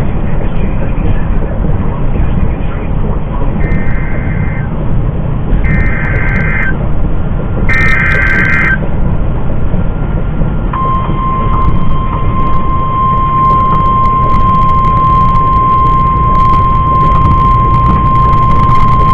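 NOAA Weather Radio emergency alert from a radio in a semi-truck cab: three short buzzy data bursts (the SAME header) about a second apart, then about 11 seconds in the steady 1050 Hz warning alarm tone begins, announcing a severe thunderstorm warning. The truck's low, steady road rumble runs underneath.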